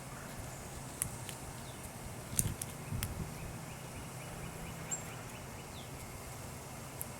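Birds at a feeder: scattered sharp clicks and taps, with a cluster about two and a half seconds in, and one short falling chirp near the end, over a steady low hum.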